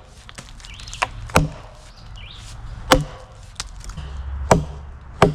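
An axe chopping a notch into a log, with about five sharp strikes at uneven intervals.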